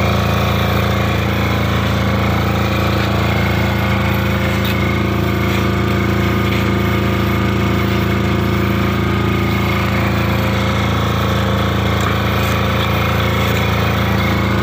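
A machine's engine or motor running steadily and loudly, a low rattling hum that holds the same pitch and level throughout.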